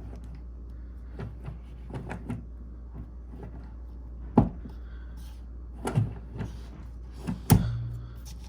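Plastic and metal clacks and knocks of a steering wheel's quick-release hub being fitted onto a quick-release wall mount: light clicks, then three louder knocks, the last followed by a short low buzz.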